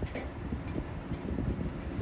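Wind buffeting the microphone in uneven gusts over a low rumble, with a faint click or two.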